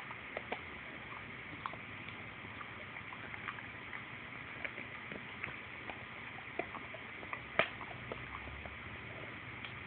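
A dog gnawing on something between its front paws: small irregular clicks and ticks of its teeth, one louder click about three-quarters of the way through, over the steady hiss of a phone microphone.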